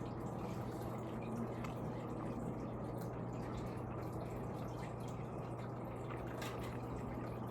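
Faint chewing and mouth clicks from eating, scattered short clicks over a steady low hum.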